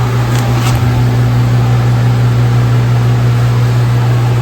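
Steady, loud low-pitched machine hum, with two light clicks about half a second in.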